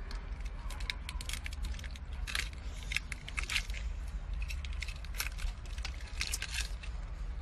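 Close eating sounds of someone biting and chewing cooked razor clams and shrimp from their shells: many short, sharp crackles and crunches, irregularly spaced, over a steady low rumble.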